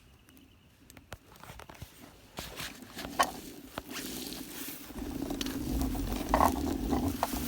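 Hoverboard kart rolling over rough ground: scattered crackles and clicks from twigs and leaves under the wheels. About five seconds in a steady low rumble from the drive joins them.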